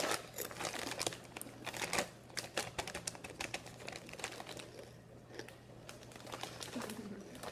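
Someone chewing crunchy food, an irregular run of crunches and clicks.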